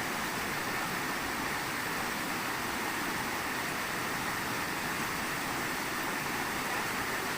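A river rushing steadily, an even hiss of flowing water with no breaks.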